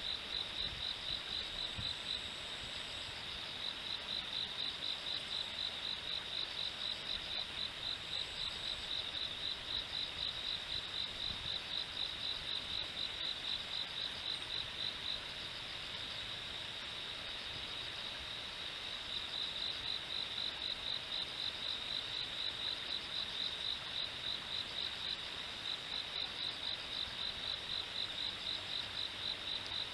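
Insect chirping: a steady, high-pitched pulsing call, a few pulses a second, fading a little about halfway through before picking up again.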